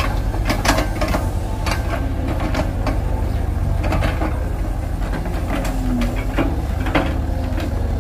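Two mini excavators' diesel engines running steadily under load, with frequent metallic clanks and knocks from their buckets and arms as they dig and swing.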